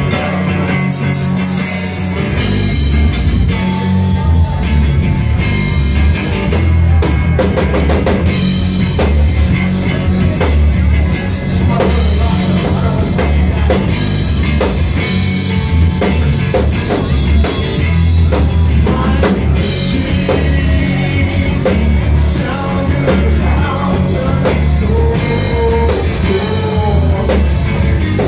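A live rock band playing: drum kit, bass guitar and electric guitar, with a singer. The sound is loud and bass-heavy.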